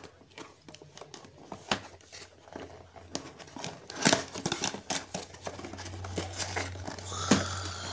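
Cardboard toy box being opened by hand: the seal slit with a thin blade, then the flaps scraped and pried open, giving a run of small clicks and rustles with two louder knocks, about four and seven seconds in.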